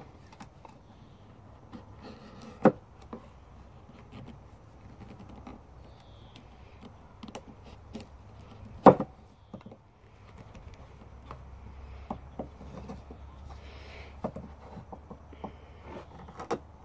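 ROOT 2.0 bushcraft knife cutting into a wooden branch: scattered small clicks and cracks of the blade in the wood, with two sharper knocks about three and nine seconds in.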